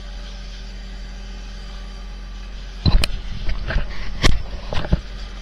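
Fishing boat's engine running steadily. About three seconds in, a run of loud knocks and bumps comes through, the loudest two about a second apart.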